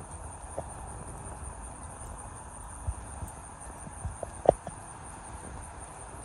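Insects trilling steadily in a high, continuous buzz over a faint low rumble. A few sharp knocks of handling noise, the loudest about four and a half seconds in.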